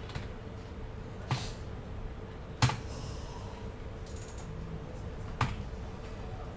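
Three separate keystrokes on a computer keyboard, sharp clicks a second or more apart, the second the loudest, over a faint steady hum.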